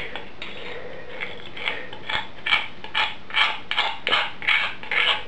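Ground coffee being scraped out of a stone mortar into a glass French press: a run of short scraping strokes, about two a second, starting a little over a second in.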